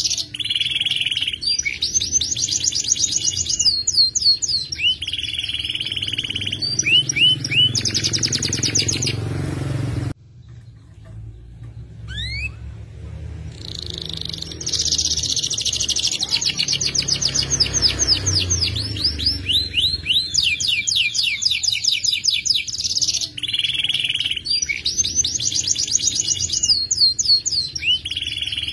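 Domestic canary (F2 YS, a second-generation Yorkshire cross) singing loudly in long rolling trills of rapid repeated notes, high and bright. About ten seconds in it breaks off for a few seconds, with a couple of short rising notes, then takes up its rolls again.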